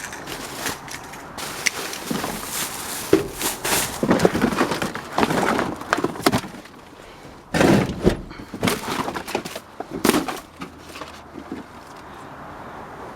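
Scrap and junk being rummaged through and shifted in a dumpster: irregular knocks, thuds and rustling, loudest in the middle and dying down near the end.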